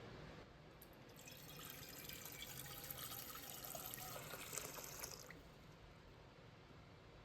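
Water running from a kitchen tap for about four seconds, starting about a second in and then shut off.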